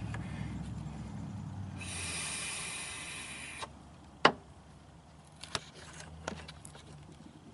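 A low rumble fades out over the first two seconds, then a steady hiss of breath lasts about two seconds as vape vapor is blown through a hose into the engine intake for a vacuum-leak smoke test. Three sharp clicks follow.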